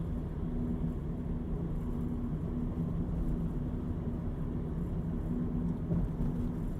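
Steady low rumble of a vehicle engine running, with a faint hum that comes and goes.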